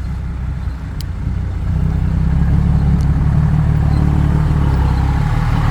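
Motor vehicle engine running with a steady low rumble that grows louder about two seconds in.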